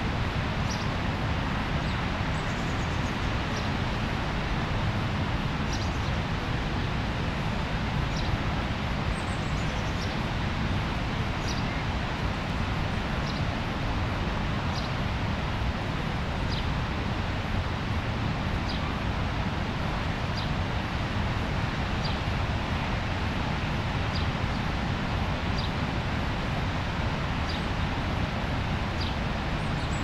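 Steady rush of water from the Rhine Falls waterfall, with a bird repeating a short high call every second or two.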